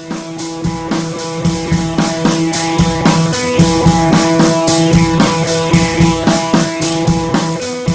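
Rock background music with a steady drum beat and guitar.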